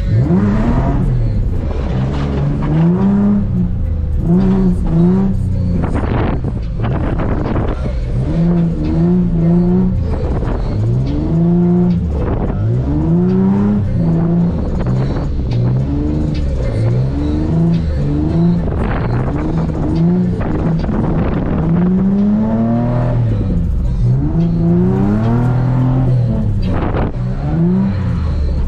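Nissan 350Z's 3.5-litre V6 engine revving hard and falling back over and over as the car is drifted on a slippery wet surface.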